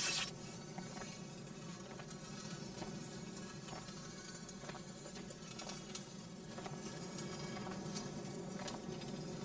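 Faint, irregular scraping and scratching over a steady low hum.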